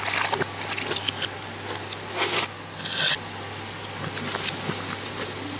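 Kitchen handling sounds played backwards: irregular scrapes, rubs and short swishes of cheesecake batter and a plastic blender jar, with a couple of louder hissing swishes around the middle. A steady low hum sits underneath.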